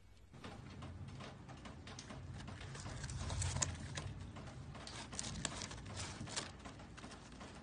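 A cat's paw scrabbling inside a paper carton of onion rings: irregular paper rustling and crinkling with light taps, starting a moment in, over a low hum.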